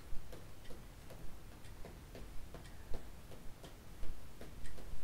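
Even, steady ticking, about three ticks a second.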